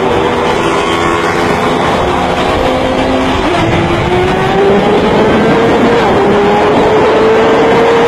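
Sport bike engine at high revs, heard on board over wind rush: the pitch holds, drops at a gear change about three and a half seconds in, then climbs steadily as the bike accelerates.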